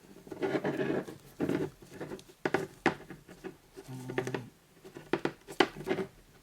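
Rustling and irregular small clicks of a plastic action figure and its packaging being handled.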